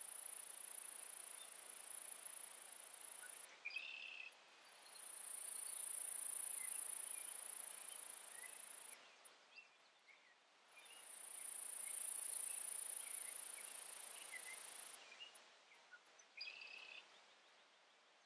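An insect trilling at a very high pitch in long bouts of about four seconds with short pauses between them, breaking into a run of separate ticks near the end.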